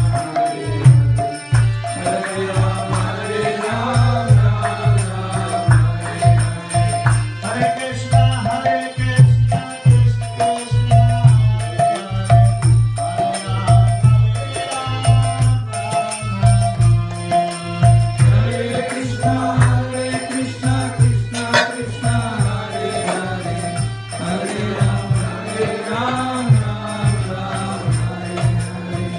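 Devotional kirtan: voices chanting to a melody over a steady drum beat and a held droning tone, with hand percussion.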